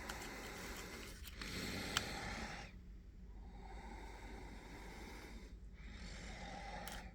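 Breathing close to the microphone, a slow hiss that swells and fades, with one small click about two seconds in.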